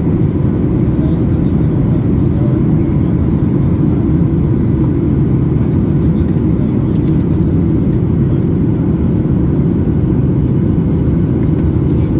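Steady jet cabin noise inside a Boeing 737 MAX 8 in flight: a low rumble from its CFM LEAP-1B engines and the airflow, with faint steady tones running through it.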